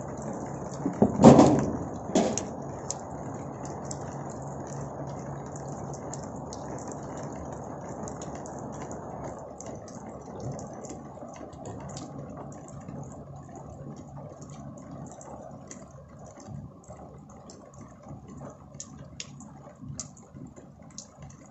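Steady heavy rain and wind, with scattered light ticks of raindrops, easing somewhat after about nine seconds. Two loud thumps come about a second and two seconds in.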